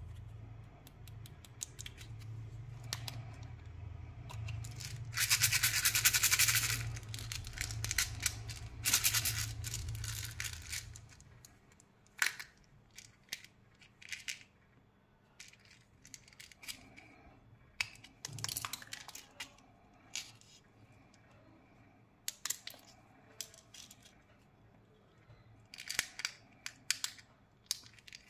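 Plastic candy packaging being handled and opened: crinkling and rustling wrapper plastic, loudest in two stretches in the first half, then scattered clicks and crackles as small plastic candy containers are handled. A low hum sits under the first ten seconds or so.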